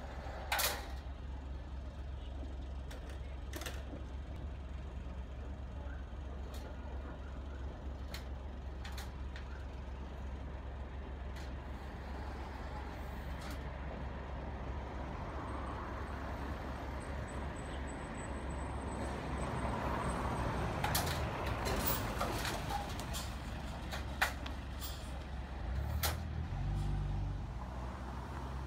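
Steady low street-traffic rumble, swelling for a few seconds about two-thirds of the way through, with scattered metallic clanks and clicks from a two-tier bicycle parking rack as bikes are loaded into its slide and lift trays.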